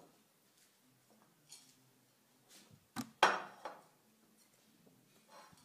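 Kitchenware set down on a table: a sharp click, then a short clatter about three seconds in, as a white ceramic plate holding a metal mesh sieve is put in place. Faint handling noises come before and after.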